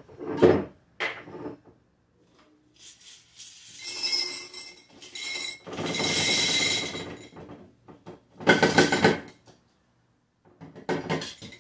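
Ice cubes clattering and rattling into a plastic pitcher, with knocks from handling the containers, in several separate bursts; the longest lasts about a second and a half, a little past halfway.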